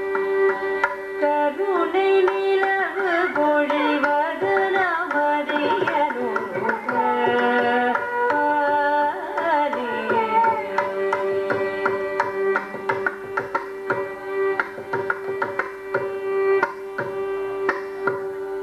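Carnatic music: a melody on voice and violin, full of gliding ornaments over a steady drone, with mridangam strokes throughout. About ten seconds in the melody glides down and settles onto a long held note while the mridangam keeps playing.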